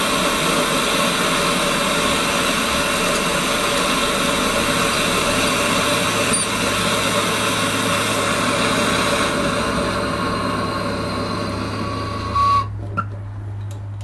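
MAPP gas blowtorch burning with a loud, steady hiss while it heats a leaking soldered copper joint to melt the solder. The hiss eases off a little and then cuts off abruptly near the end with a short knock as the torch is shut off.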